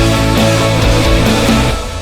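Loud rock background music with heavy guitars and a strong bass beat, cutting off just before the end.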